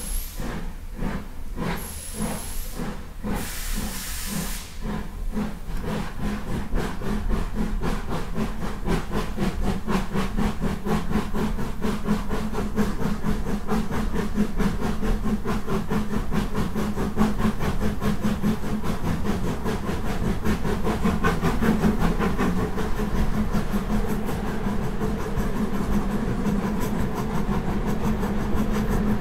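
Midland 4F 0-6-0 steam locomotive 43924 pulling away with its train: bursts of steam hiss in the first few seconds, then a steady beat of exhaust chuffs that quickens and grows louder as the train gathers speed.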